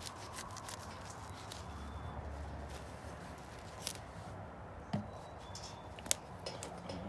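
Knife cutting and scraping meat away from the base of a turkey's tail: soft scraping with scattered small clicks, the sharpest about six seconds in.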